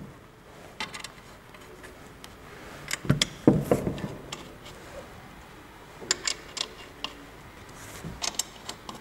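Wheel nuts being spun onto the studs of a classic car's steel wheel by hand: scattered light metallic clicks and clinks, with a duller knock about three and a half seconds in as the wheel is handled.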